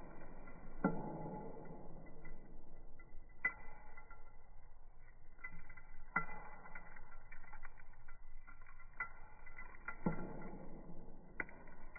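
Vacuum cleaner running with a steady whine while handfuls of dirt and fluff are dropped onto carpet, landing with a few soft thuds and a brief rustle after each.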